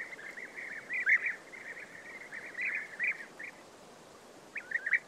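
European bee-eaters calling: many short, trilled calls overlap for the first few seconds, then thin out to a few scattered calls, with a brief run of calls near the end.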